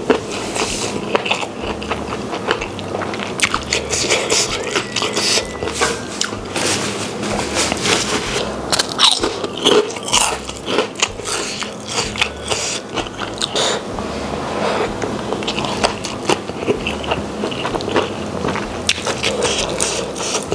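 Close-miked chewing and biting of a mouthful of spicy rice with squid, full of wet mouth sounds and frequent sharp crunches and crackles. Fingers working the rice on the banana-leaf plate add light scraping.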